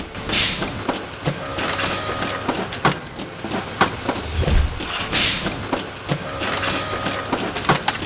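Automated folding-ruler production machinery running, with irregular mechanical clicks and clacks. Two short hisses come about five seconds apart, and a low thump falls just before the second hiss.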